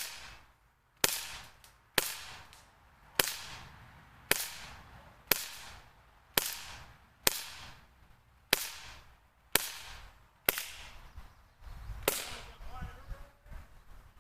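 Crosman 1911BB CO2 BB pistol firing about a dozen shots, about one a second, each a sharp pop that dies away quickly. The last shot comes after a slightly longer pause.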